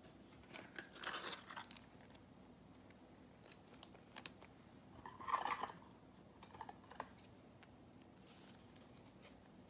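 Faint, scattered rustling and crinkling of trading cards and their packaging being handled, with a few short crackles and clicks, the clearest about five seconds in.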